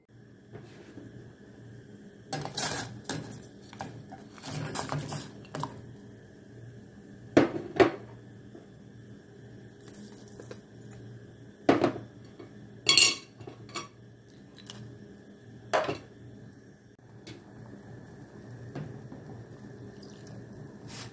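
Kitchen clatter as ingredients go into a pot: a metal pot and utensils knocking, with several sharp clinks and water being poured. A faint steady hum runs underneath.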